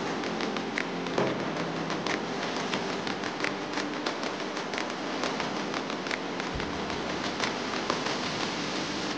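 Plastic bubble wrap crinkling and crackling as it is handled and pulled open, a dense run of small sharp crackles.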